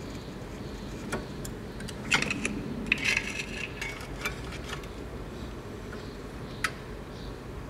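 Scattered metal clicks, clinks and scrapes from a screwdriver levering the pads against the front brake rotor of a 2006 Mitsubishi Outlander to push the twin caliper pistons back a little at a time. The busiest clatter comes about two to three and a half seconds in, with single sharp ticks around one, four and six and a half seconds.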